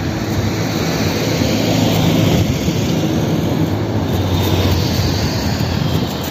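Wind rumbling on a phone microphone while riding a bicycle along a road, with the steady hum of a van's engine as it comes up from behind and overtakes.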